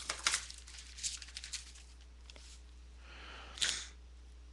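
Paper being handled and rustled: a few short rustles in the first second and a half, then a louder rustle about three and a half seconds in.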